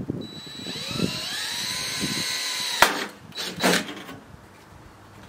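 Cordless drill-driver running a screw in. The motor winds up to a steady whine for about two and a half seconds and stops with a sharp click, then runs again briefly about a second later.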